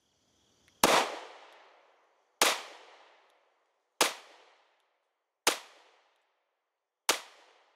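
Five single gunshots, about a second and a half apart, each a sharp bang with a long echoing tail; the first is the loudest and the tails grow a little shorter each time.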